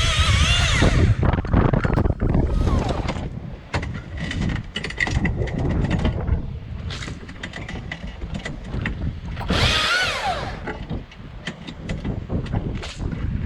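Husqvarna electric chainsaw cutting with a wavering whine that stops about a second in, followed by a run of scattered cracks and snaps. Near ten seconds the saw whines briefly again and winds down, falling in pitch, over a steady low rumble.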